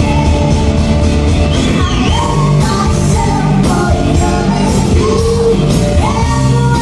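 Live band music with singing: an upbeat rock-style song, a vocal line over the band and drums keeping a steady beat.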